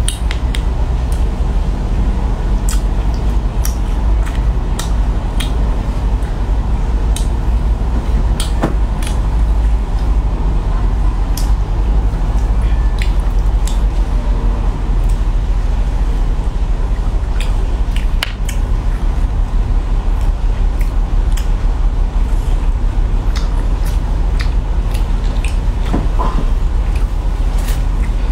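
Seafood shells being handled and pulled apart by gloved hands, giving scattered sharp clicks, over a steady low rumble.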